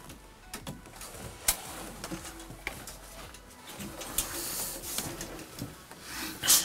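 A wooden panel of boards nailed together knocks and scrapes against the timber framing as it is hauled in by hand. A plastic underlay membrane rustles against it. The sharpest knocks come about a second and a half in and just before the end.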